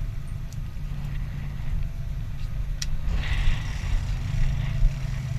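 Sportfishing boat's engine running steadily, a low drone, with a hiss of wind and water coming up about three seconds in and a single sharp click just before it.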